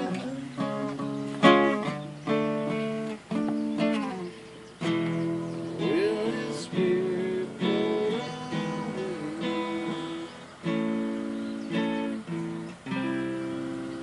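Steel-string acoustic guitar played live, a run of picked and strummed chords, each left to ring and die away.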